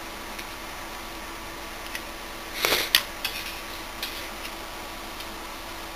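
A small camcorder being handled: a brief rustle and a sharp click about three seconds in, then a few lighter clicks, over a steady low hum.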